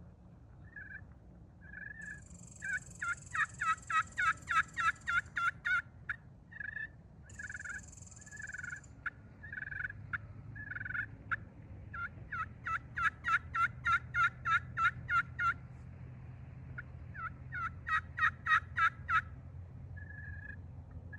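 Purple slate turkey pot call over a stainless steel soundboard, in a pheasant wood pot, played with a black locust striker, making hen-turkey yelps: three runs of quick notes at about four a second, with scattered single notes between the runs.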